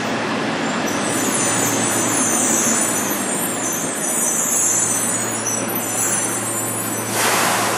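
Yokohama Blue Line subway train running into an underground station platform and braking to a stop, with a steady electric hum and high wheel and brake hiss. A short burst of air hiss comes near the end.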